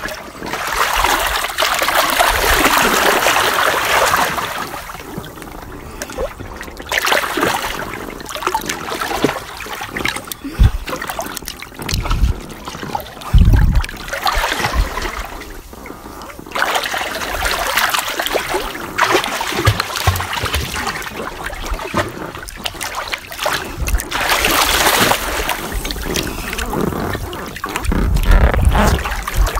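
A person splashing and dabbling in swimming-pool water: uneven bursts of splashing and trickling with quieter lulls between them. A few short, deep thumps come around the middle and again near the end.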